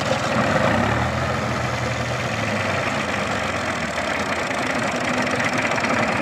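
Farm tractors' diesel engines running at a steady idle, the nearest an orange Kubota M5000 DT, with a second tractor drawing up. A deeper engine hum swells for about two seconds, starting about a second in.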